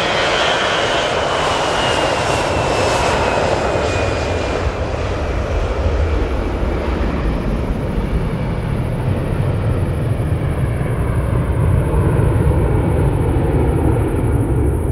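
Airbus A320-214's CFM56 turbofan engines at take-off thrust as the airliner rolls past and lifts off: a high whine falls in pitch over the first few seconds, then the sound turns to a deep, steady rumble as it climbs away.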